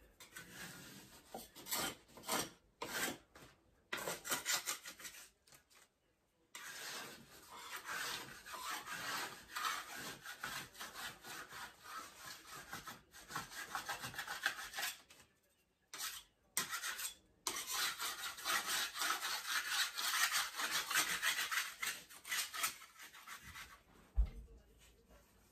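Metal wallpaper scraper, about 2.5 inches wide, scraping water-soaked backing paper off a wall: a few short rasping strokes, then long runs of steady scraping broken by brief pauses. A short low bump comes near the end.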